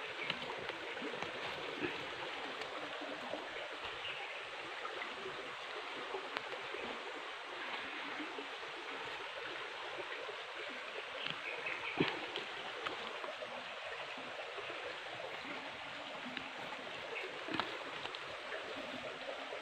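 Steady, even rushing noise outdoors, with a few sharp clicks, the loudest about twelve seconds in.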